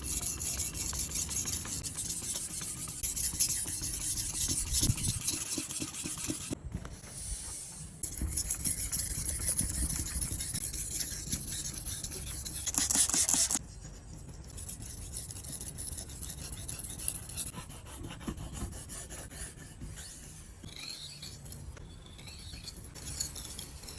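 Yanagiba knife blade being sharpened, steel rasping against the abrasive in continuous strokes, with a short pause about a quarter of the way in and lighter strokes in the second half.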